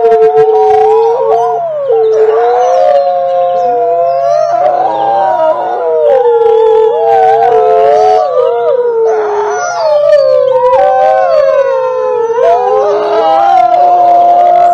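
A pack of wolves howling together: several long howls overlap, each sliding up and down in pitch.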